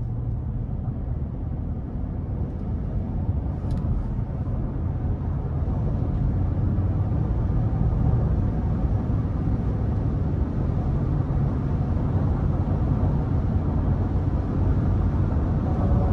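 Inside the cab of a 2022 Ford F-150 with the 5.0-litre naturally aspirated V8, accelerating gently in eco mode onto an interstate. The engine drones low at around two thousand rpm, under tyre and wind noise that grows steadily louder as speed rises.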